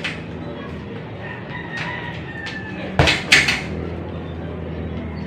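A heavy punching bag struck twice in quick succession about three seconds in, two sharp thuds. Before that, a rooster crows faintly in the background.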